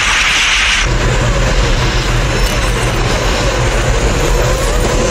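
A loud hiss for about the first second, then the steady mechanical rumble of a large vehicle moving through a tunnel, with faint wavering tones above it.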